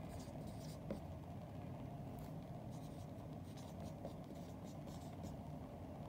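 Marker pen writing on a whiteboard: short, faint scratches and squeaks of the felt tip as numbers are written stroke by stroke, with a light tap about a second in.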